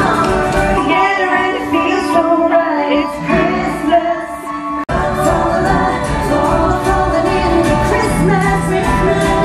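Live folk music: women singing with acoustic guitar and band accompaniment. The recording cuts abruptly about halfway through and picks up in another part of the performance.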